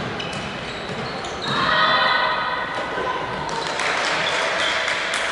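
Women's voices calling out, with one drawn-out high call in the middle, echoing in a large sports hall, plus a few short knocks from the court.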